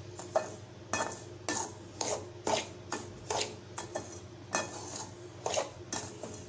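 Dry semolina being stirred and scraped around a metal pan with a spoon as it dry-roasts, in regular scraping strokes about two a second.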